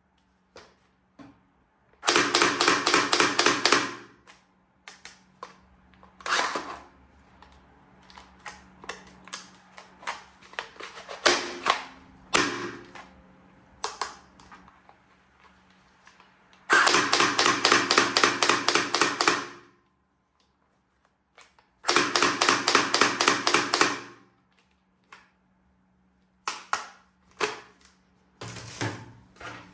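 Toy gun firing in three bursts of rapid automatic-style clicking, each lasting two to three seconds, with scattered plastic clicks and rattles from handling between the bursts.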